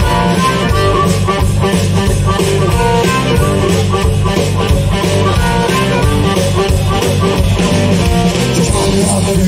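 A blues band playing an instrumental passage live, with electric guitar, bass guitar and drum kit and no singing.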